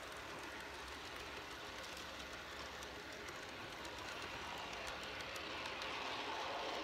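G scale model train rolling along outdoor garden track, heard close up from on board: a steady rolling rattle of wheels on rail with faint rapid ticking. The sound grows a little louder near the end and picks up a whine.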